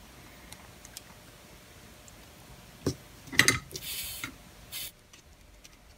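Metal tweezers clicking and clattering against a workbench and circuit board as they are put down: a single sharp click about three seconds in, a quick cluster of louder clicks just after, then two brief scraping hisses.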